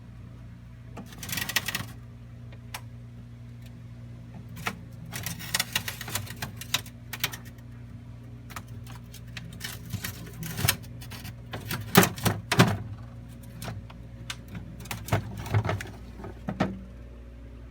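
Irregular clicks, knocks and short bouts of clattering, as of objects being handled, loudest about twelve seconds in, over a steady low hum.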